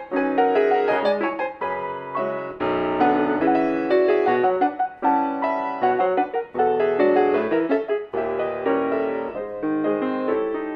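Solo piano playing a classical piece: quick repeated chords in the right hand over a moving bass line.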